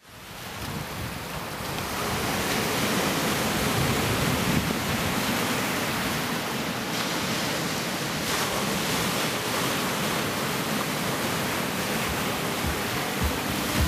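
Ocean surf washing and breaking on a rocky shore, a steady rush that fades in over the first couple of seconds.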